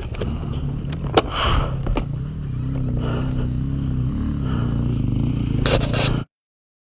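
Dirt bike engine idling steadily, with a few sharp knocks and scrapes of handling around it; the sound cuts off suddenly near the end.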